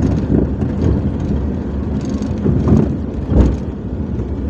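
A car driving slowly, heard from inside the cabin: a steady low engine and road rumble, with two short louder bumps about three seconds in.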